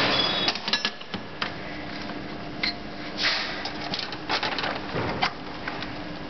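Irregular clicks and knocks with a few short scraping noises, over a steady low hum.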